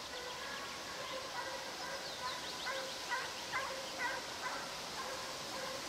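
Russian hounds baying on a hare's scent trail, a run of short repeated calls strongest in the middle.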